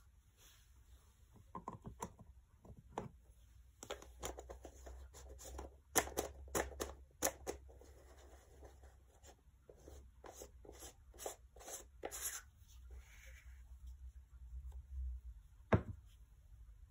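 Small handling noises: scattered clicks, taps and rustles as a clear plastic pot and tools are moved about, with a quick run of sharp clicks in the middle and one louder click near the end.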